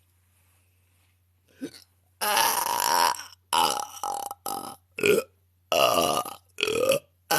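A woman belching, a rapid run of about six loud burps beginning about two seconds in, some nearly a second long and others short.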